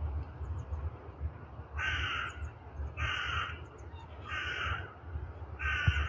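A crow cawing four times, harsh calls of about half a second each, a little over a second apart, over a low steady rumble.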